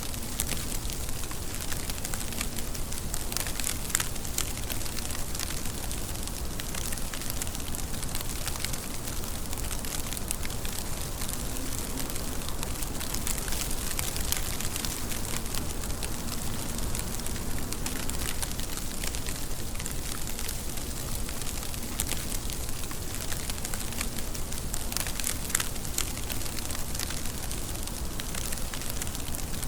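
Steady rain falling, a dense hiss with crackling patter of individual drops striking a surface.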